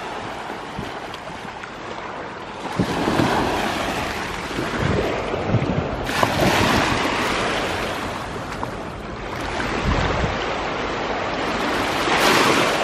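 Small waves washing up on a sandy beach, swelling and falling back every few seconds, with wind rumbling on the microphone.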